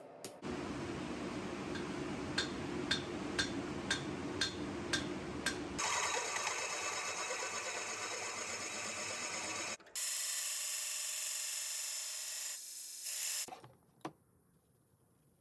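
Power tools working a steel damascus billet in three steady runs: the first with a low hum and regular clicks about twice a second, then two brighter, hissing grinding stretches. The last cuts off about two seconds before the end, leaving near silence with a single click.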